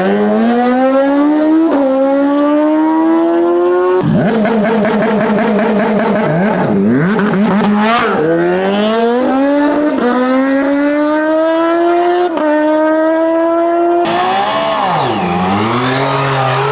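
Engine of a vehicle on a speed run at full throttle, its pitch climbing hard and dropping at each upshift, repeated over several pulls. The sound changes abruptly twice, and near the end another launch begins.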